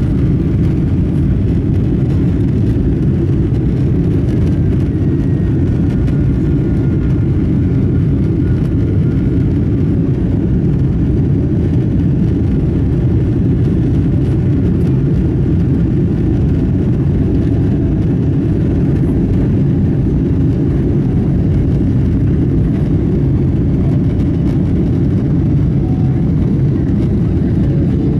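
Airliner jet engines at takeoff thrust, heard from inside the passenger cabin during the takeoff roll and lift-off: a loud, steady, deep rumble.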